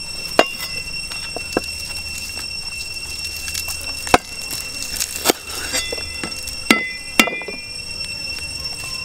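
Lemongrass stalks being smacked against a wooden chopping board to bruise them, giving about six sharp, irregularly spaced knocks.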